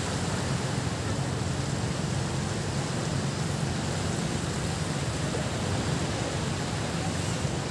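Small waves washing in at the shoreline, a steady rushing noise.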